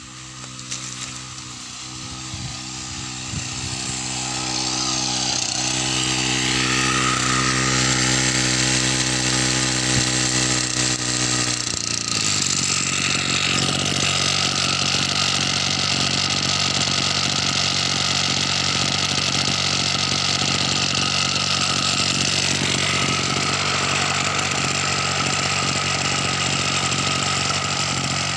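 Brush cutter engine running steadily at high throttle, driving a water-pump head attachment. It grows louder over the first several seconds, and its tone changes abruptly about twelve seconds in before holding steady.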